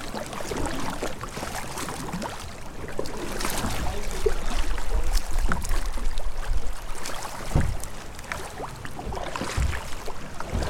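Water splashing and lapping against a kayak's hull as it is paddled through choppy water, with paddle strokes dipping in. Wind rumbles on the microphone, strongest midway.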